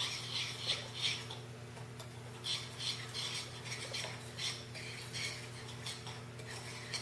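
A utensil stirring and scraping a dry spice rub of paprika, salt, garlic powder and dried herbs around a bowl, in short spells of scraping and clinking with brief pauses between.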